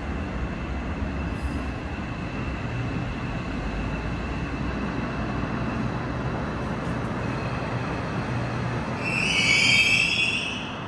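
New Woojin-built Seoul Metro Line 8 subway train rolling slowly through a station with a steady rumble and a faint steady high whine. About nine seconds in, a loud high-pitched brake squeal rises as it comes to a stop.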